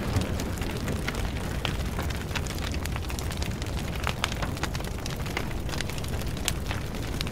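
Fire sound effect of burning flames: a steady low rumble with irregular crackles and pops.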